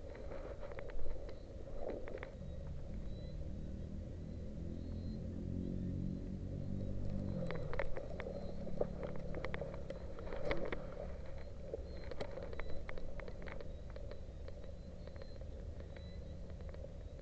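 A motor vehicle's engine running some way off, its pitch rising for a few seconds and then holding steady, with scattered sharp clicks and rattles over it.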